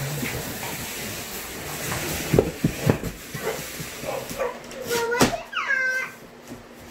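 Large cardboard mattress box being pushed and handled: a scraping, rustling noise with several sharp knocks, three close together about two and a half seconds in and one more about five seconds in, followed by a brief high-pitched cry.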